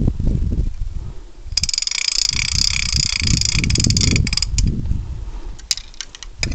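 A rapid mechanical ratcheting clatter of fine clicks, starting about a second and a half in and lasting about two and a half seconds, with a few scattered clicks near the end. Low rumbling and knocks from handling run under it.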